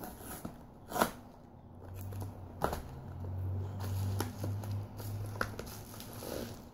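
Cardboard candle boxes being handled and lifted out of a shipping box: scattered knocks and taps, the sharpest about a second in, with a low rumble through the middle.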